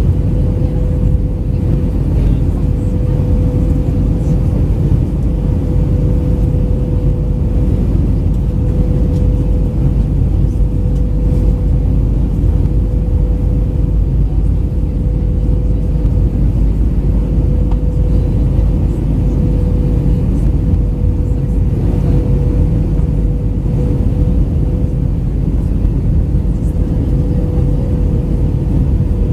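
Airbus A319-112 cabin noise in flight on descent: a steady, even roar of its CFM56 engines and the airflow, heavy in the low end, with a constant hum near 500 Hz running through it.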